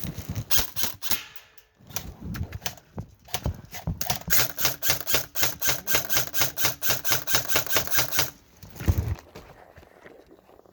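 Airsoft gun firing a rapid burst of evenly spaced shots, about six a second for some four seconds, with the steady whine of the gun's mechanism under the shots; a few separate clicks come earlier.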